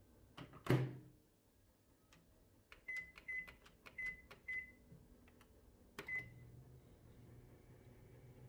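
LG microwave oven: its door shut with a thump, then four short beeps as the time buttons are pressed, a click and a beep from the start button about six seconds in, and then the steady low hum of the oven starting to heat.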